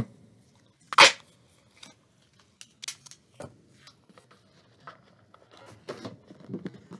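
Thick duct tape ripped once about a second in, then scattered light clicks and crinkles as hands press the tape onto a plastic soda bottle.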